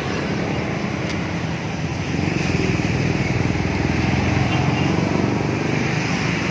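A motor vehicle engine running close by, steady, growing louder about two seconds in.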